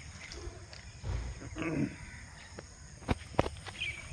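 Aseel chicken, held upside down, giving a short call that falls in pitch, followed about three seconds in by two sharp knocks.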